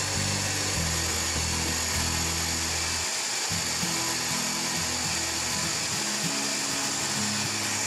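Countertop blender running steadily, pureeing boiled grated carrots into a thick paste.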